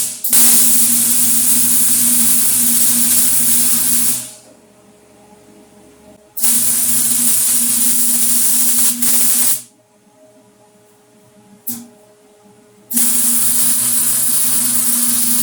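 Electric arc welding on steel channel: three long runs of steady crackling hiss over a low electrical hum, each a few seconds long with short pauses between, and a brief strike of the arc about twelve seconds in.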